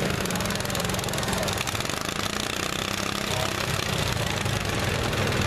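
Riding lawn mower engine running steadily at idle, with a fast even putter.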